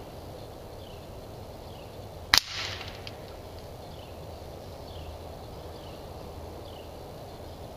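A single shot from a Ruger Airhawk Elite .177 spring-piston air rifle, a sharp crack a little over two seconds in. It is followed by a brief ringing as the pellet hits the metal spinner target and knocks the spinner round.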